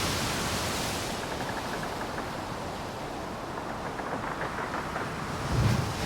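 Wind buffeting the microphone on an open ship deck: a steady rushing noise, with a stronger low gust near the end.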